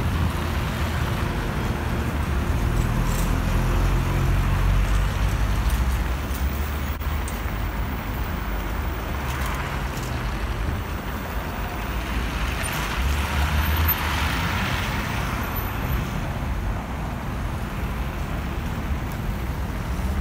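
City street traffic: cars and trolleybuses passing on a snowy road, a steady low rumble, with one vehicle passing close and louder about two-thirds of the way through.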